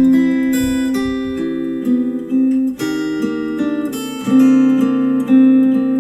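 Instrumental music led by a plucked and strummed acoustic guitar, played back through a JBL Charge 4 Bluetooth speaker.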